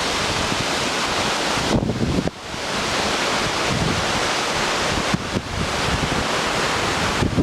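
Waterfall's rushing water roaring steadily, with wind buffeting the microphone in low gusts; the noise dips briefly about two seconds in and again near the end.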